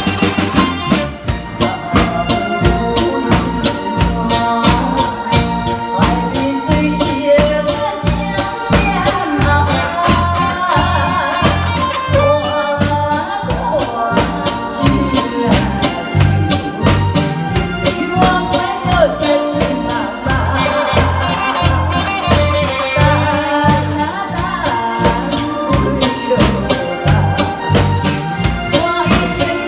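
A woman singing a Taiwanese song into a microphone, backed by a live band of drum kit, electric guitar and keyboard playing a steady beat. The band plays alone for the first several seconds before her voice comes in.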